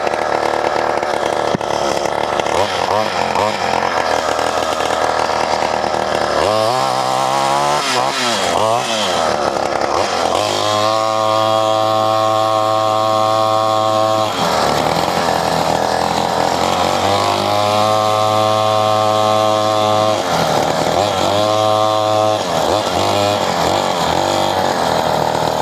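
Small single-cylinder engine of a cheap $250 Walmart dirt bike being ridden. It revs up and down a few times about a quarter of the way in. After that it holds steady high revs in three stretches, dropping off between them.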